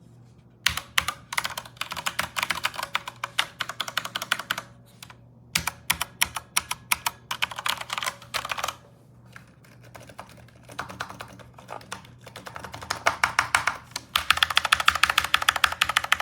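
Typing on a Corsair K70 RGB PRO mechanical keyboard with Cherry MX Red linear switches: fast runs of keystroke clacks in four bursts, broken by short pauses.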